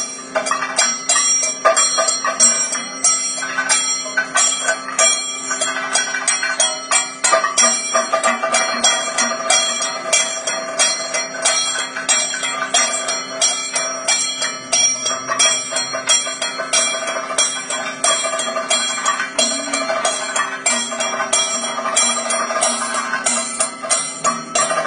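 Kathakali percussion accompaniment with no singing: rapid, dense drum strokes under the steady ringing of bell-metal cymbals and gong.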